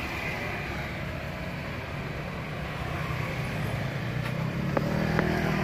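Steady rumble of passing road traffic, growing louder near the end, with two short sharp sounds about five seconds in.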